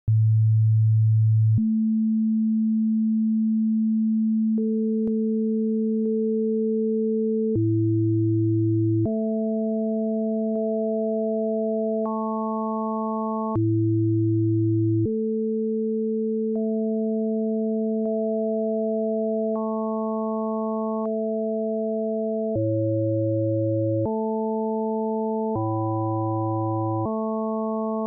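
Computer-synthesized chords of pure sine tones, each held about a second and a half before switching abruptly to the next, with a faint click at each change. It opens on a single low tone at 110 Hz, then a series of chords stacks several tones between about 100 Hz and 1 kHz. Each chord is the weight spectrum of a Lie group representation played as pitches.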